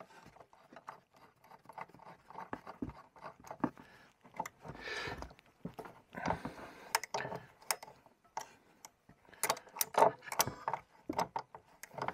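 Locking pliers clamped on a snowmobile's speedometer cable fitting, turning it loose: irregular small metal clicks and scrapes, with a couple of short rustles partway through.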